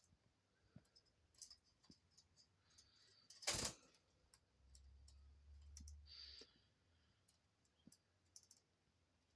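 Near silence broken by faint, scattered small clicks, with one louder brief knock about three and a half seconds in and a soft low rumble shortly after.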